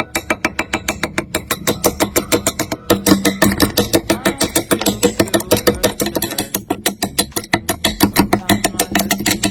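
Fast, regular mechanical clicking or rattling, about eight or nine clicks a second, over a steady low hum.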